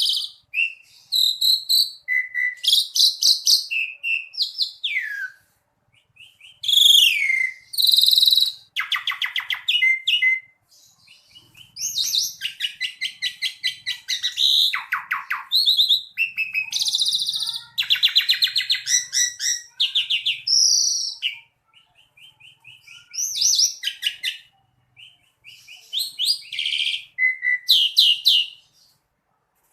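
Asian pied starling singing a long, varied song: quick phrases of whistles, rapid trills and buzzy rattling chatter, broken by short pauses.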